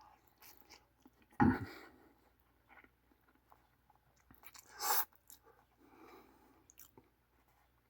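A person chewing a mouthful of ramen noodles with crunchy chili crisp: quiet mouth clicks and crunches, with a louder short sound about a second and a half in and a louder, hissy one about five seconds in.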